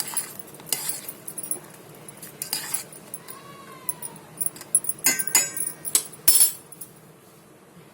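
A spoon clinking and scraping against a metal cooking pot of kashayam in a few short spells, just after cumin has gone in. About three seconds in, a short whine rises and falls once.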